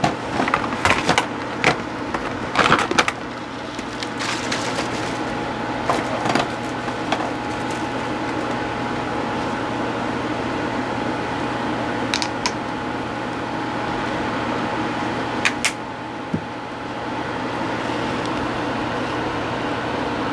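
Steady background hum with small clicks and knocks, clustered in the first seven seconds, then twice more, at about twelve and fifteen seconds in.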